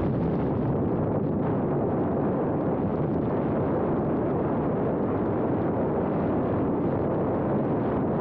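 Steady loud rush of airflow and propeller wash over the onboard camera of a radio-controlled E-flite Cessna 150 model plane, with its motor at full throttle for take-off from the sand and the climb out over the surf.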